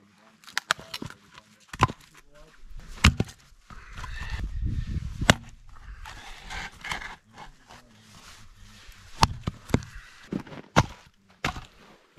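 Hatchet splitting short firewood logs on a chopping block: about nine sharp knocks at uneven intervals as the blade bites into the wood.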